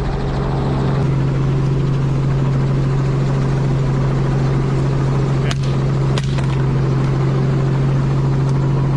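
Light helicopter in flight, heard from the open cabin: a steady engine and rotor drone with a strong low hum. Two short clicks come about five and a half and six seconds in.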